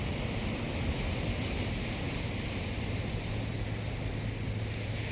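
Steady seaside noise of waves and wind blowing on the microphone, with a low steady hum that grows stronger about halfway through.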